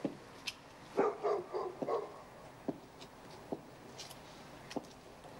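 A dog barking, a quick run of four or five short barks about a second in, with a few scattered sharp clicks.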